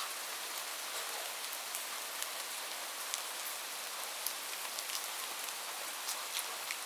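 Light rain falling steadily, a constant hiss with scattered sharper drop ticks.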